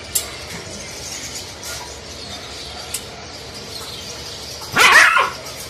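Siberian husky barks once, loud and short, near the end.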